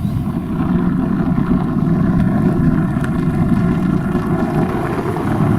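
A car engine running steadily at low speed, a low exhaust note with no big revs.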